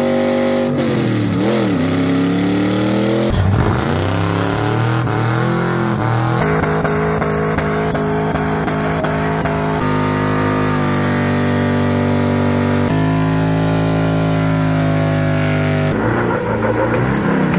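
Engines of cars and trucks doing burnouts: revving hard, rising and falling in pitch, then held at high revs for seconds at a time while the tyres spin. The pitch jumps to a new engine every few seconds.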